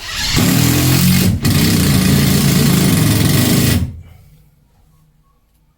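Power drill driving screws: its motor runs loud and fast for about four seconds, with a brief stop about a second and a half in, then winds down.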